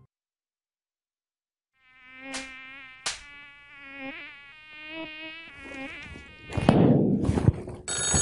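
After a silent start, a buzzing tone that wavers in pitch runs for a few seconds, broken by two sharp clicks. A loud burst of noise follows, and a telephone starts ringing near the end.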